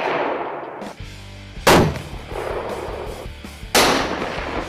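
Two loud, sudden booms about two seconds apart, each fading away slowly, with background music underneath; it opens in the fading tail of an earlier boom.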